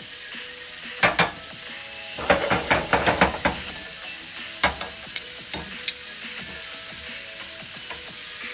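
Shrimp frying with a steady sizzle in a hot pan, with a cooking utensil clacking against the pan: two clicks about a second in, a quick run of clatter between about two and three and a half seconds, then a single click near five seconds.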